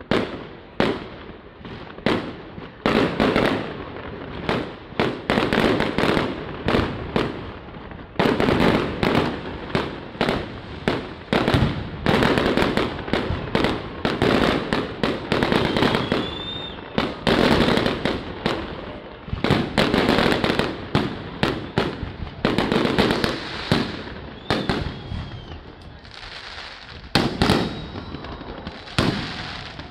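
Aerial fireworks display: shell bursts bang in quick succession, several a second, at times merging into dense crackling. The barrage thins to a few separate bangs in the last few seconds.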